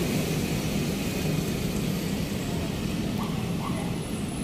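Steady outdoor background rumble, a low even noise of the kind made by road traffic and wind, with no single event standing out.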